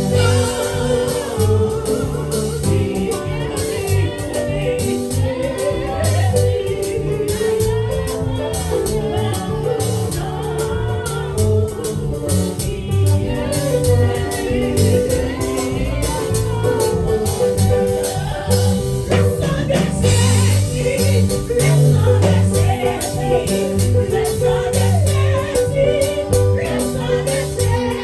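Gospel worship song: a voice singing over a band with a strong bass line and a steady percussive beat.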